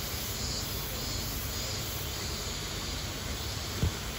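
Steady outdoor background noise with a low rumble, and one brief low thump near the end.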